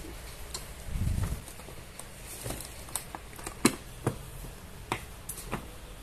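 A dozen or so scattered light clicks and taps, irregular and sharp, over a steady low background, with a brief low rumble about a second in.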